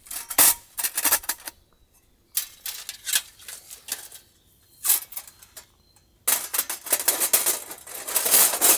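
Thin stainless-steel sheet panels of a Winnerwell flat-pack fire pit clattering and clicking as they are handled and slotted together. The clatter comes in bursts with short pauses and is busiest in the last couple of seconds.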